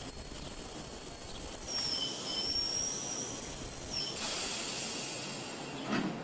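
Vintage electric streetcar standing at a stop over a steady hum of noise with a thin high whine; about four seconds in, a loud hiss of air starts, and a short thud comes near the end.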